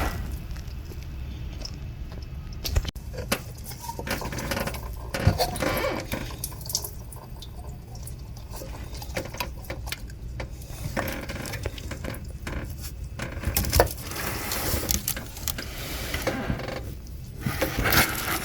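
Hand tools and metal engine parts clinking, knocking and scraping at an uneven pace while a thermostat housing is unbolted and pulled off a V6 engine, over a steady low hum.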